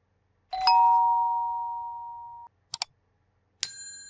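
Subscribe-reminder animation sound effects: a two-tone chime held for about two seconds and cut off, a quick double mouse click, then a bright bell ding that rings out slowly.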